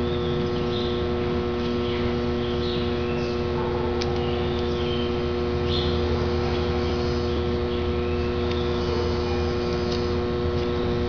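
Steady electrical hum with several fixed tones, with faint short high chirps now and then.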